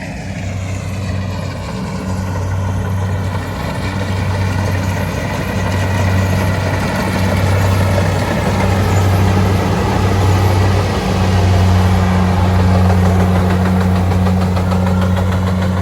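Rice combine harvester's engine running steadily with a strong low hum, its machinery adding a broad rushing noise on top. It grows a little louder over the first few seconds.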